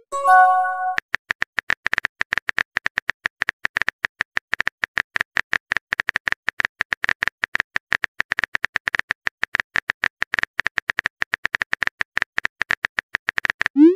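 Rapid keyboard-typing click sound effects from a texting app, many clicks a second. About a second in, a short chime of several tones, just after a rising swoosh, marks a message being sent.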